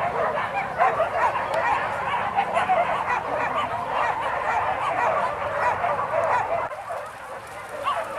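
A pack of boar-hunting dogs yelping and barking together, many short high yips overlapping without a break. It eases off for a moment near the end.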